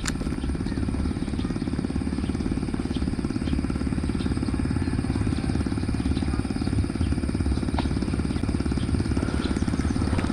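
Steady low mechanical whirring with a rapid, even pulse, like a small motor running.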